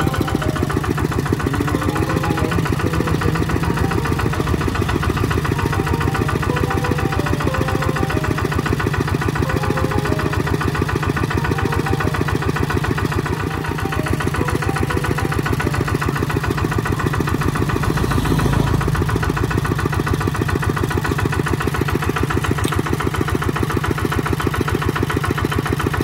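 Single-cylinder diesel engine of a two-wheel walking tractor running steadily with an even, rapid thudding beat. The low thud grows briefly heavier about two-thirds of the way through.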